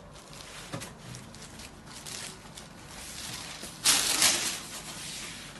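Kanjivaram soft silk saree with zari weaving being unfolded by hand: rustling of the fabric, with a louder rustle about four seconds in as it is spread open.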